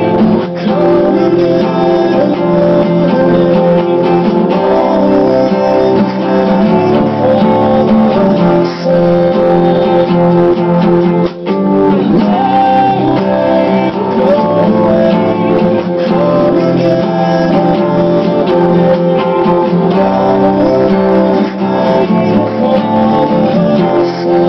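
Steel-string acoustic guitar strummed in chords, with a brief gap a little under halfway through.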